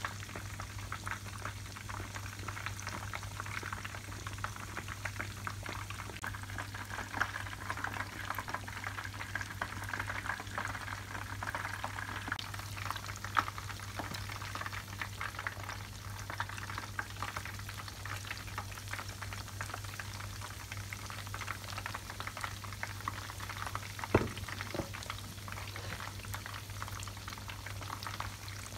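Breaded food deep-frying in hot oil: a steady, dense crackle and fizz of bubbling, with a few sharper pops, a knock about 24 seconds in, and a steady low hum underneath.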